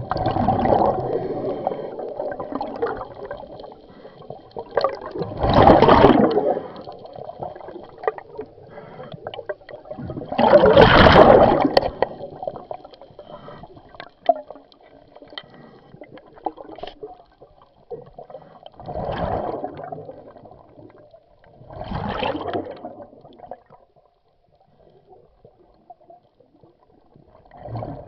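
Exhaled air bubbling out of a scuba diver's regulator underwater, in bursts of a second or two about every four to eight seconds, with quieter bubbling between breaths.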